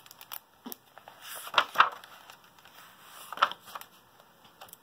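Pages of a hardcover picture book being turned by hand: a few light taps and clicks, then paper swishes with a crackle, the loudest just under two seconds in and a shorter one at about three and a half seconds.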